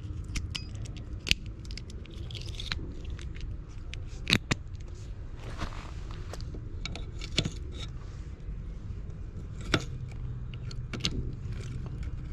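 Keys jangling and metal clicking as a lock is fitted and keyed onto a shut-off gas meter, with sharp clicks scattered throughout. The loudest clicks come about one, four and ten seconds in, over a steady low rumble.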